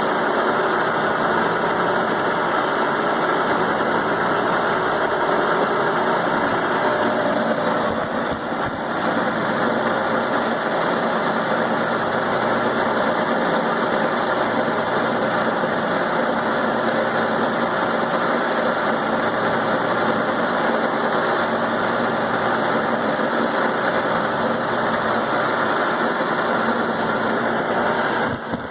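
Milling machine cutting thick steel plate with a roughing end mill: a steady, continuous machining sound, dipping briefly about eight seconds in.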